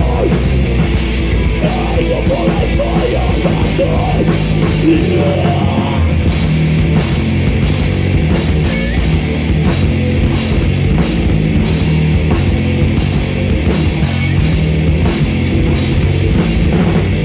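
Live heavy metal band playing loud, with a pounding drum kit and electric guitars.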